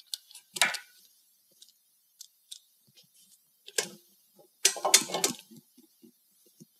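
Metal clinks and knocks of a truck wheel hub and its tapered roller bearing being handled as the bearing is lifted out and the hub slid off the spindle. A few scattered clicks, then a louder cluster of clanks about five seconds in.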